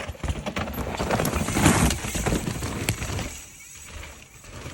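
Mountain bike rolling down a rock feature: tyres scrabbling over rock and the bike rattling with many quick clicks and knocks, loudest about halfway through, then fading after about three seconds.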